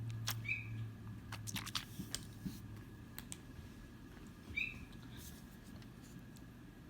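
Small plastic fidget toys being handled, giving scattered light clicks and taps, most of them in the first few seconds. Two short high chirps come through, about half a second in and again near five seconds.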